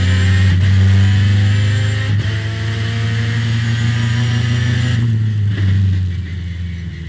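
Race car engine under hard acceleration, heard from onboard. Its note is cut by quick upshifts about half a second and about two seconds in, and climbs between them. Around five seconds in it drops away as the throttle is lifted, with one short rise in the note shortly after.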